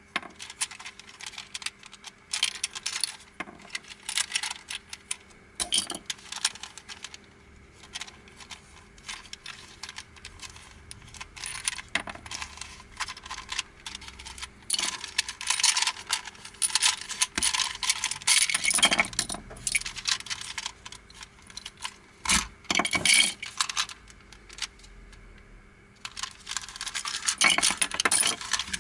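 Hard plastic pieces of a Crazy Octahedron Plus twisty puzzle clicking and clattering as it is twisted and taken apart by hand, pieces prised off the core and dropped onto a pile of loose pieces. The clatter comes in irregular bursts, busiest past the middle and again near the end.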